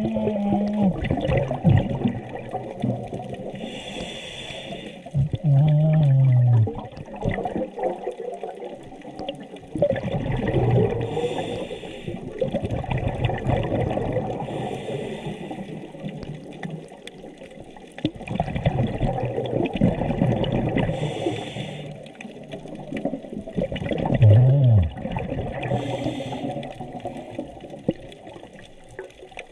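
A scuba diver's regulator breathing underwater. Each inhalation brings a short hiss, recurring every few seconds, and between them the exhaled air bubbles and rumbles. A few brief low tones that drop in pitch come through the bubbling.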